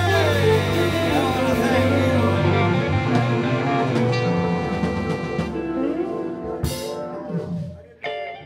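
Live blues band of electric guitars, bass, drums and keyboard playing the final bars of a tune, with bending guitar notes over held chords. A cymbal crash comes just before the end, the band rings out and fades, and a short sharp sound follows near the end.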